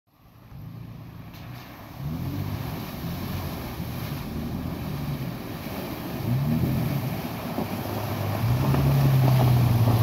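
Toyota FJ Cruiser's V6 engine pulling through a shallow creek crossing, its pitch rising and falling with the throttle, with water churning and splashing around the tyres. It grows louder as the truck approaches and passes close, holding a steady note near the end.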